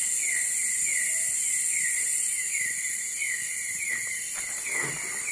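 Night insect chorus in tropical forest: a steady high-pitched drone, with a short falling chirp repeating about twice a second.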